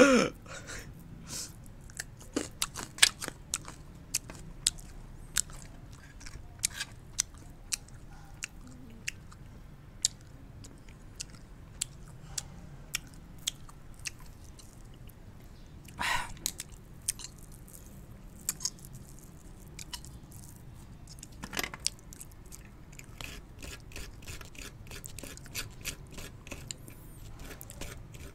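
Someone biting and chewing hard dalgona honeycomb candy (sugar cooked with baking soda), with many small sharp crunches and a few louder bites past the middle.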